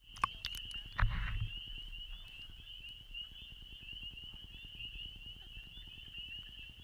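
A dense chorus of spring peepers: many high, short rising peeps overlapping into a steady shrill band. A few clicks sound early, and a brief low thump about a second in.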